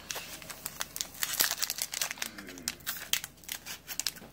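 Foil wrapper of a Pokémon trading-card booster pack crinkling in quick, irregular crackles as fingers grip and pull at it to tear it open, the sealed pack resisting.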